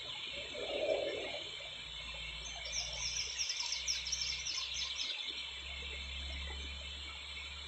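A small songbird singing a fast, high trill that falls in pitch, from about three to five seconds in. Behind it runs a steady high chirring and a low rumble, with a brief low swell about a second in.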